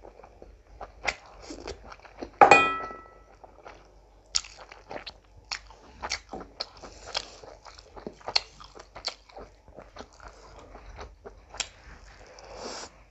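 Close-miked eating by hand: wet chewing, lip smacks and small crunchy bites as curry and rice are eaten with the fingers. About two and a half seconds in comes one loud clink that rings on briefly.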